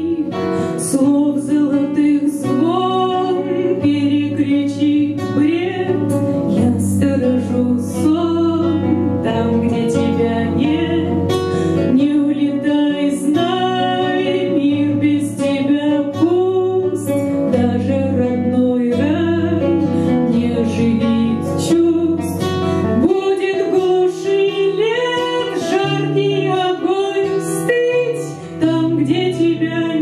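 A woman singing a Russian song to acoustic guitar accompaniment, performed live into a microphone.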